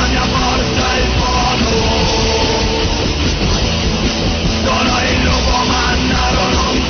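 Loud rock song played by a full band, with no vocals in this stretch.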